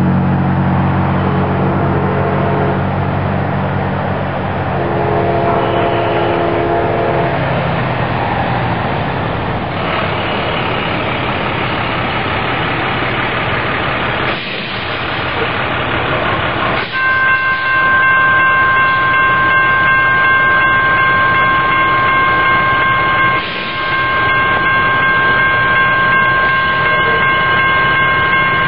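An approaching Amtrak train, with a brief horn chord in the distance early on. Partway through, a railroad grade-crossing bell starts and keeps ringing steadily as the crossing activates for the train.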